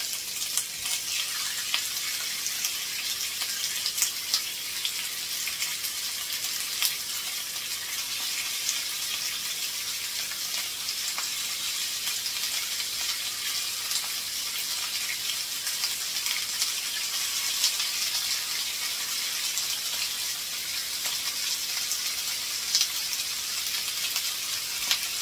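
Oil-and-flour-coated bonito steaks sizzling on a hot, dry cast-iron grill pan as they are laid in one by one: a steady hiss with a few short, sharper crackles.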